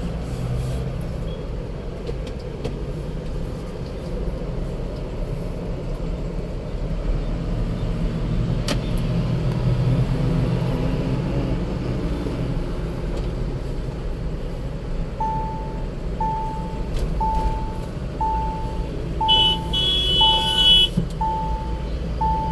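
Mahindra Thar at high speed, a steady low drone of road and wind noise: the high-speed noise problem the video is about. From about two-thirds of the way in a warning chime beeps about once a second, and near the end a high tone sounds for about a second and a half.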